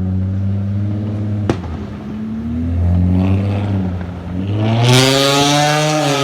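A vehicle engine running, then revving up about four and a half seconds in and held at high revs. One sharp pop comes about one and a half seconds in.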